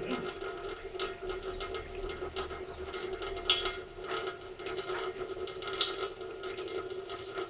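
A thin stream of tap water falling into a metal pan in a stainless steel sink: an irregular patter of drips and small splashes, with a few sharper splashes, over a steady hum.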